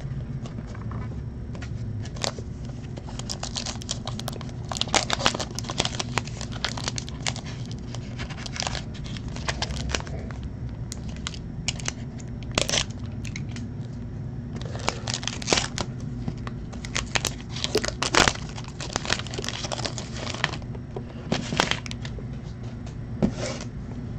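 Foil trading-card pack wrapper crinkling and tearing as it is opened and handled, in irregular clusters of crackle with quieter gaps between.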